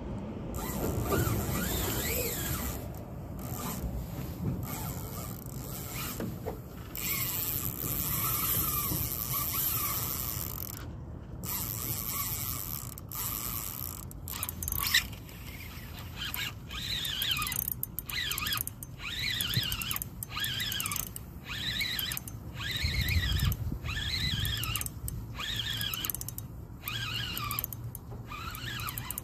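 Fishing reel under load from a hooked fish, its drag squealing and its gears ratcheting. From about halfway through, the sound comes in short spurts about once a second.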